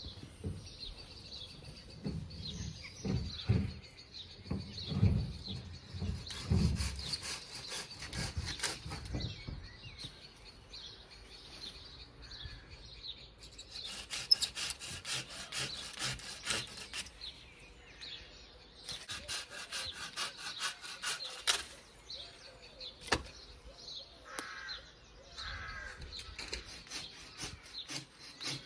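Hand saw cutting through the wood of a small tree in quick, even back-and-forth strokes, in two long runs a little past the middle. Before them come low knocks and the rustle of branches being handled.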